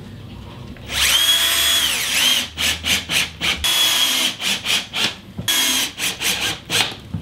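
Bosch 18V cordless drill driving screws through a plasterboard patch into the wooden laths and studs of a lath-and-plaster wall. About a second in, the motor whine rises to a steady pitch and holds. A second run follows, then a string of short stop-start bursts as each screw is sunk.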